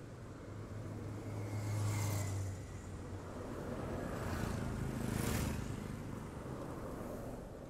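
Road traffic: a steady low engine rumble, with two vehicles passing by, the first about two seconds in and the second about five seconds in, each swelling and fading away.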